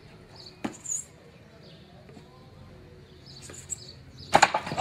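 Quiet street background with a light knock about half a second in, then a few sharp, loud impacts near the end: a person landing hard from a backflip off a wall.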